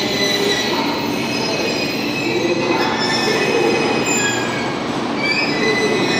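Seven Stars in Kyushu 77-series passenger cars rolling slowly past, their wheels squealing on the rails: several high squealing tones that come and go and waver in pitch over a steady rumble.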